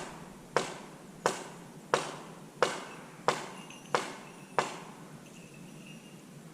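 A series of seven sharp knocks at an even pace, about three every two seconds, each with a brief ringing tail. They stop about two-thirds of the way through.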